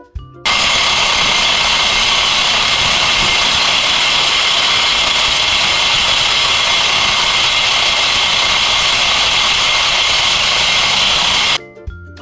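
A loud, steady rushing noise with no pitch to it, cutting in abruptly about half a second in and stopping abruptly near the end.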